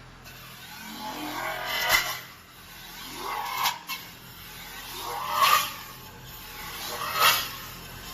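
CNC metal spinning machine with its roller pressing an aluminium blank on the spinning mandrel. It makes a scraping, rising sound that swells to a peak and drops away at each forming pass, about every two seconds, over a steady machine hum.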